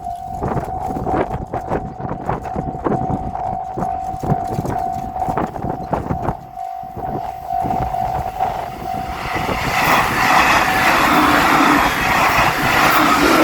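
Japanese level-crossing warning bell ringing in a steady repeating clang. About nine seconds in, a train reaches the crossing and passes through with a loud rush of wheel and rail noise, while the bell keeps ringing.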